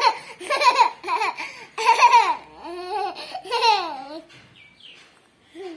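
Toddler laughing in a run of short high-pitched bursts over the first four seconds, then a brief faint sound near the end.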